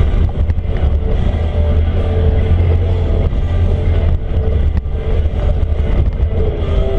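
ATV engine running steadily, with rock music playing over it.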